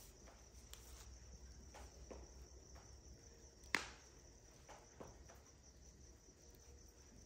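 Faint steady high-pitched trilling of crickets, with scattered small crackles and one sharper pop just past halfway from logs smouldering in a wood fire.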